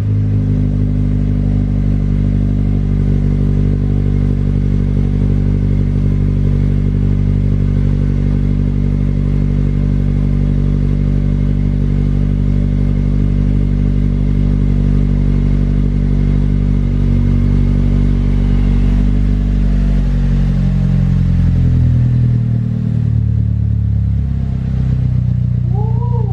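Chevy Cruze 1.4-litre turbo four-cylinder idling steadily through a freshly installed ZZP 3-inch exhaust, just after start-up. The idle speed drops to a lower, deeper note about twenty seconds in.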